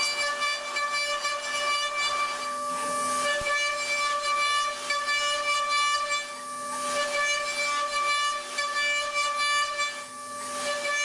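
CNC milling machine cutting metal: a steady high-pitched whine from the spinning cutter over a hiss, easing off briefly about every four seconds as the tool moves between passes.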